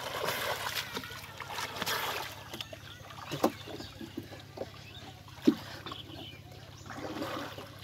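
Water splashing as a swimmer paddles up to a wooden rowboat, then knocks and thumps on the boat's wooden planking as he grips the end and hauls himself aboard. The loudest thump comes about five and a half seconds in.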